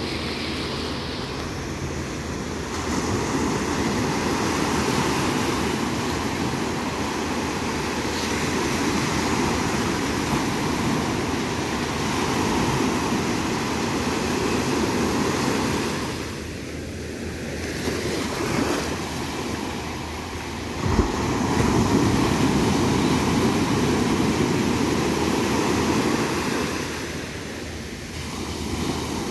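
Sea surf: waves breaking and washing up the beach in a continuous wash that swells and eases in surges. There is a short thump about two-thirds of the way through.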